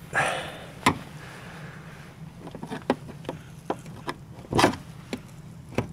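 Screwdriver knocking and scraping on the plastic locking ring of a VW Golf 5 fuel pump flange as the ring is worked loose: scattered sharp clicks and knocks, the loudest about four and a half seconds in, over a low steady hum.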